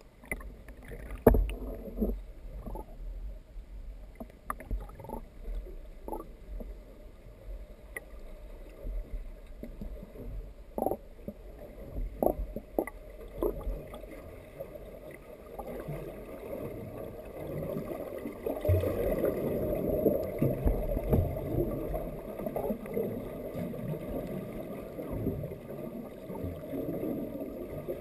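Muffled underwater water noise heard through a GoPro's waterproof housing: a low rush with scattered knocks and clicks, growing louder and rougher about halfway through.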